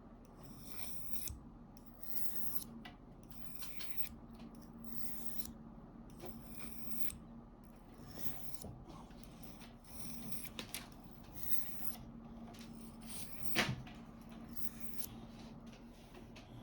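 Small knife blade stroked repeatedly across a wet whetstone, a rasping scrape about once a second, with a sharp click near the end.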